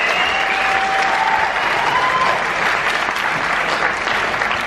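Seated audience applauding steadily.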